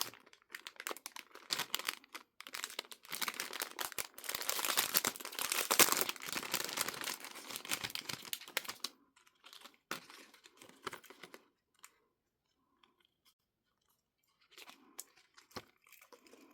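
Packaging being torn open and crinkled by hand to get at a keycap keyring, a dense run of rustling and tearing that stops about nine seconds in, followed by a few scattered clicks and faint handling.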